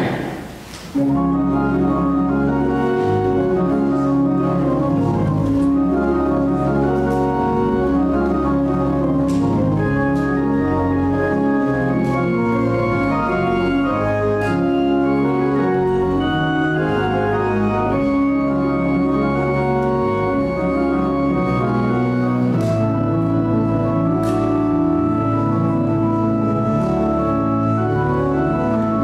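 Church pipe organ playing the postlude: full sustained chords over a deep pedal bass, the chords changing every second or two, starting about a second in.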